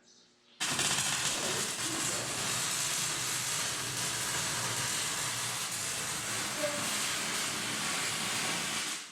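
Water spraying in a steady, loud hiss that starts abruptly just after the start and cuts off near the end.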